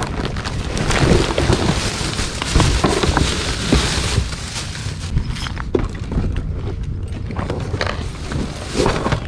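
Plastic shopping bags and plastic-wrapped items rustling and crinkling as they are handled and packed into a car trunk, over a low rumble of wind buffeting the microphone.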